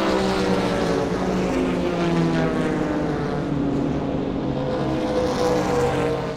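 Racing car engines running at speed on track, several at once, their pitch sliding slowly up and down.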